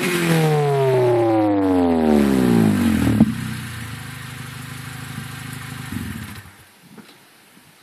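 Honda Prelude's exhaust through a Spoon N1 muffler, its note falling from a rev back down over about three seconds and settling into a steady idle. The sound drops away about six seconds in.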